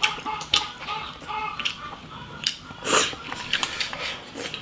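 Close-up eating sounds: chewing, with many short sharp clicks and a noisy slurp of soup from a bowl about three seconds in.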